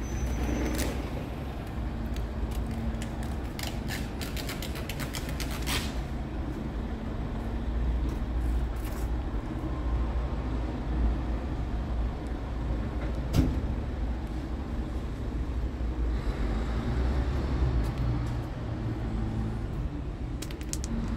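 Scania R tractor unit's diesel engine idling steadily with a low rumble. A cluster of clicks and taps comes in the first few seconds, and a single sharp knock about halfway through.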